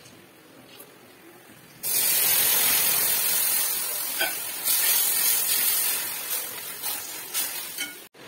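Hot oil and fried spices in a pan sizzling loudly as liquid masala goes in. The hiss starts suddenly about two seconds in and slowly dies down, with a few clinks of a metal ladle in the pan.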